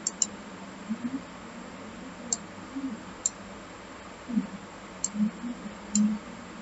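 Computer mouse clicking, about six short sharp clicks spaced irregularly, two in quick succession at the start, over a steady faint hiss.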